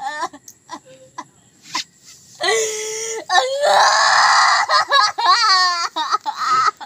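A young woman wailing and sobbing in acted grief: broken crying, then a long drawn-out cry and a harsh scream a few seconds in, followed by wavering sobs.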